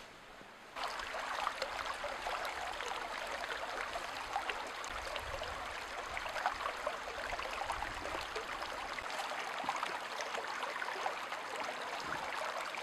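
Shallow brook water babbling over stones, starting just under a second in, with small splashes as hands and a sampling net are worked through the water.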